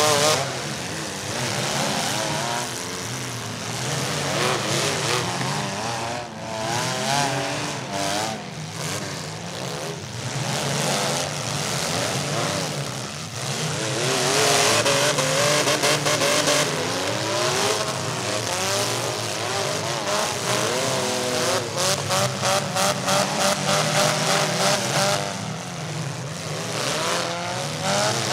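Several compact demolition derby cars' engines revving hard at once, their pitches rising and falling as they push through the mud. Near the middle of the second half one engine pulses rapidly, about three or four beats a second, for a few seconds.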